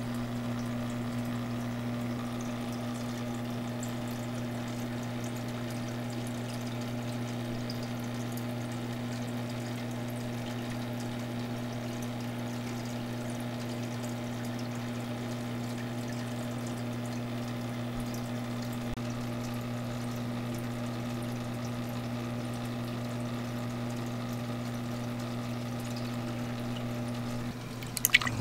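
Aquarium pump running with a steady electric hum over the sound of moving, pouring water. The hum cuts off near the end and a few sharp knocks follow.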